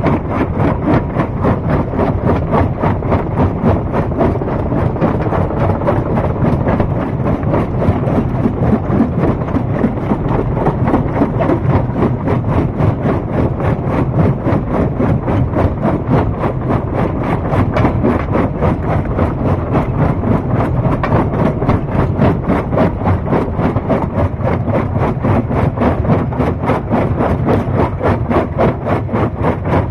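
Stone crusher machinery running steadily under load, with a rapid, even pulsing.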